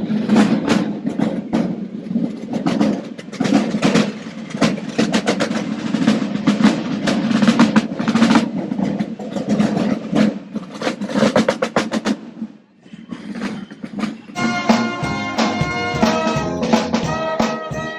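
Basel carnival snare drums playing a march with fast rolls and dense strokes. The drumming breaks off about two-thirds of the way in, and after a short lull different music with held pitched notes takes over.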